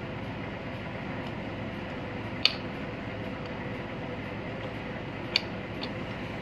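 Steady machinery hum with faint steady tones underneath, and two sharp small clicks, about two and a half and five and a half seconds in, as a potentiometer is handled and fitted into a speed dial indicator's mounting.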